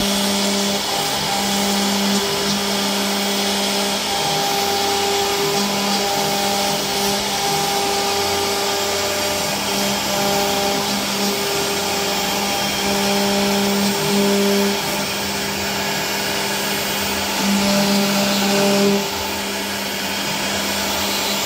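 CNC router spindle running as its bit mills grooves into a board: a steady hum under a continuous cutting hiss, growing louder briefly twice in the second half.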